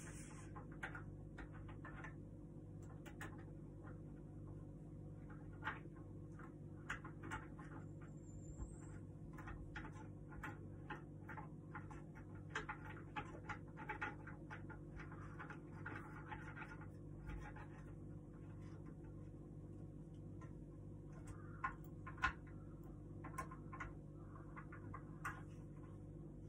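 Light, irregular clicks and taps of a hand tool driving screws into the wooden parts of a small flat-pack table, over a steady low hum.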